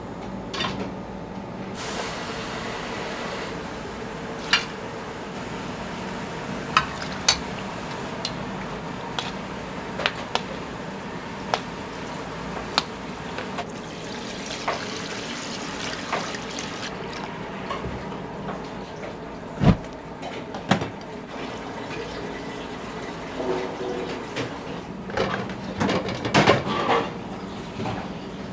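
Liquid poured and sloshing into a pot, with scattered clinks and knocks of metal pots and utensils over a steady kitchen hum. There is one sharp knock about two-thirds through and a run of clattering near the end.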